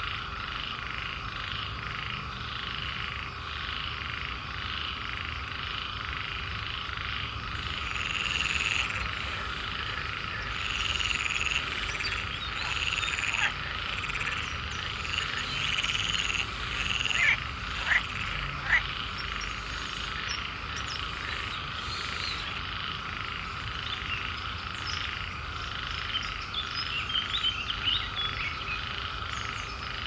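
A chorus of swamp frogs calling: a steady, dense layer of calls underneath, with louder croaking calls coming and going over it. The louder calls are busiest through the middle, with a few sharp, loud calls about two-thirds of the way through.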